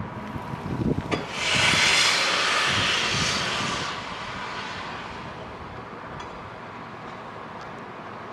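LNER A1 Pacific steam locomotive 'Tornado' working, with a few low exhaust beats, then a loud hiss of steam starting about a second and a half in and easing off over the next few seconds.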